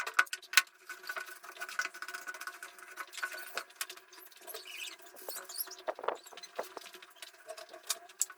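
Irregular light clicks and taps of small hard objects being handled, over a faint steady hum.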